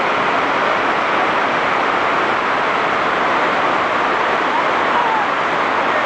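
Cusárare Falls, a 30-metre waterfall, pouring into its pool, heard close to its base: a loud, steady rush of falling water.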